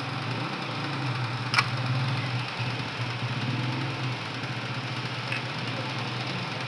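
A steady low machine hum under a background of noise, with a sharp click about a second and a half in and a fainter one later.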